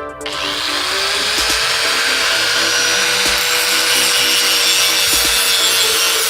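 An electric power tool starts up about a third of a second in. Its motor whine rises in pitch over the first second, then holds steady under a loud, even hiss as it works.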